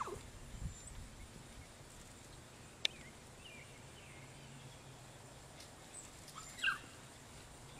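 Faint open-air background with a sharp click about three seconds in and a short puppy yelp near the end, with a few faint chirps in between.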